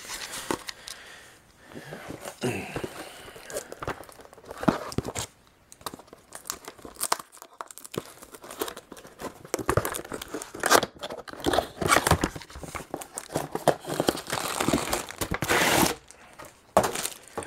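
Packaging of a laptop cooling pad being torn open and crinkled by hand: irregular rustles and rips, the longest and loudest stretch near the end.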